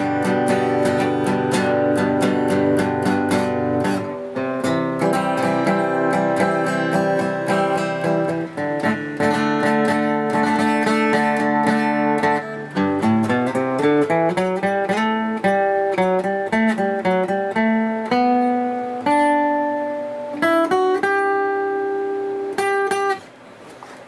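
Epiphone Hummingbird acoustic guitar, spruce top on a mahogany body, played with a pick: quick strummed chords at first, then picked single notes and chords with a rising run of notes about halfway through. A few last strums near the end ring out and fade.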